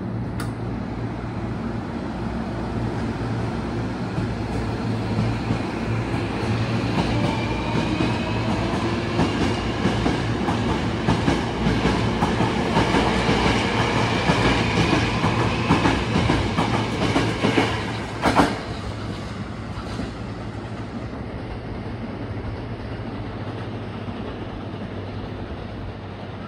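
Hankyu 1000 series electric train pulling out of the station. Its motor whine rises in pitch as it accelerates, and the wheels click over rail joints as the cars pass. A single loud knock comes about eighteen seconds in, and the sound then eases as the train moves away.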